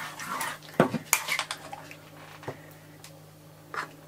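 Serving spoon scraping and knocking in a stainless steel saucepan of mince as it is spooned onto a plate, with a few sharp clinks: several around a second in, one midway and one near the end.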